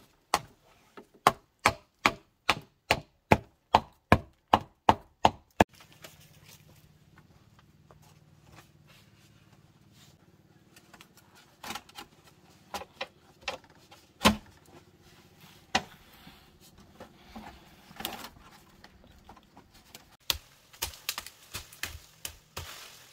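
A hammer driving a fence post into the ground at the foot of a bamboo fence: a quick, even run of about a dozen sharp blows, about two and a half a second, which stops about five seconds in. After that come scattered, lighter knocks and taps as the fence is worked on by hand.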